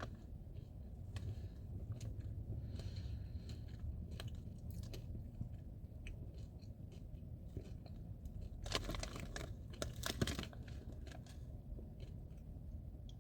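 Chewing Nerds gummy clusters, small crunches and clicks of the candy-coated gummies being eaten, over a low steady hum. Two brief louder rustling noises come about nine and ten seconds in.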